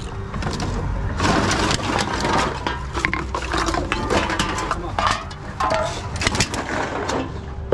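Aluminium cans and plastic bottles clattering and knocking as they are handled and fed one after another into a TOMRA reverse vending machine, a quick run of clicks and rattles.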